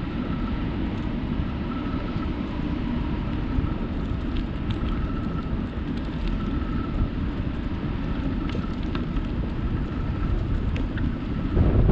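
Steady wind rushing over the microphone of a camera on a moving bicycle, with the rumble of the tyres rolling on an asphalt trail. The wind gets louder near the end.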